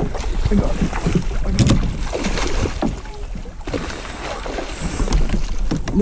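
Hooked smallmouth bass thrashing and splashing at the surface beside a kayak while a landing net is dipped into the water, with wind buffeting the microphone.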